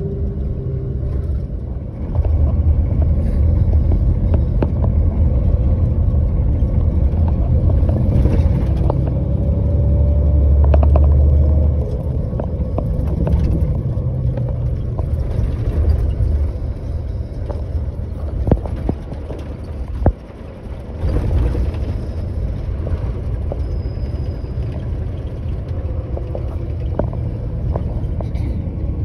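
Steady low rumble of a moving motor vehicle, growing louder about two seconds in and easing off again about ten seconds later, with a few sharp knocks and rattles.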